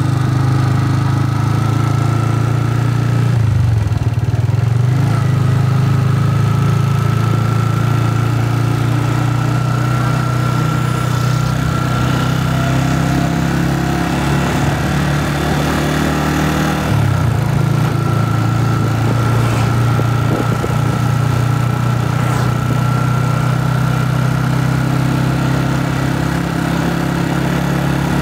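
Motorcycle engine running steadily while being ridden, heard from the rider's seat, with a faint steady whine above the engine note. The engine note changes briefly about three seconds in and again around seventeen seconds.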